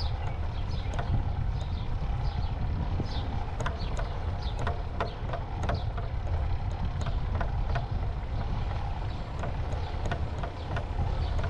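Wind rushing over the microphone and tyre rumble from a bicycle rolling along a concrete path, with frequent sharp clicks and rattles and a few short high chirps.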